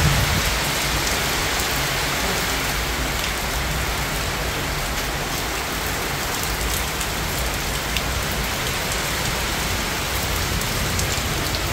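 Heavy rain pouring steadily onto waterlogged paving and foliage: a dense, even hiss with a few sharper drop hits.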